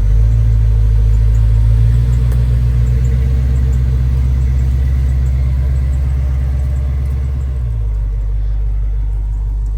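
1996 Impala SS's LT1 V8 engine running with a loud, steady, deep rumble. About three-quarters of the way through, the deepest part of the rumble drops away.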